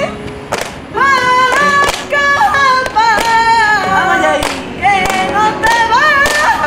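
Flamenco cante por soleá de Triana: a voice singing long, wavering, ornamented lines, with palmas (handclaps) struck several times along with it.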